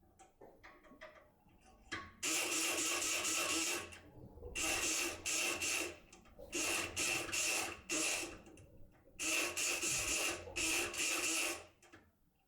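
Multipick Kronos electric pick gun buzzing in a lock, switched on and off in repeated bursts of about half a second to a second and a half, the first starting about two seconds in.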